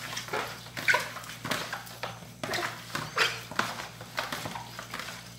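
Hands squeezing and turning raw chicken pieces with lime in a plastic basin: irregular wet squelches and slaps, a few a second.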